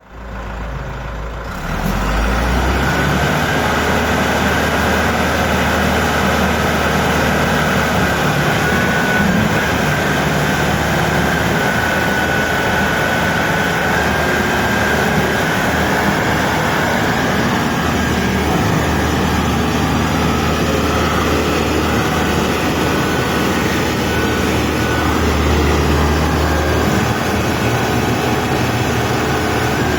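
WZ30-25 articulated backhoe loader's engine running steadily, jumping louder about two seconds in, with a faint steady high whine over it.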